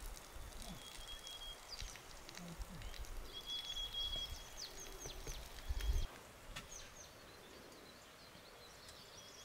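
Small birds calling in the open air: short falling chirps again and again, and a thin steady whistle held about a second at a time, over a low rumble that drops away about six seconds in.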